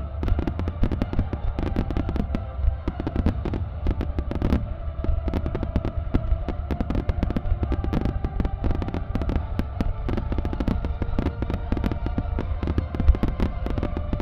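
Fireworks music starmine going off: a dense, unbroken run of sharp bangs from aerial shells and ground-fired mines over a constant deep rumble.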